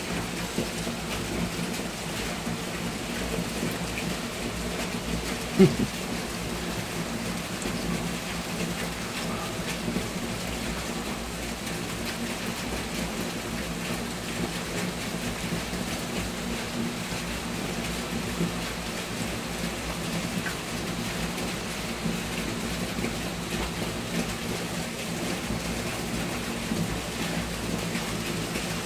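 Steady rain during a thunderstorm, with one short sharp knock about six seconds in.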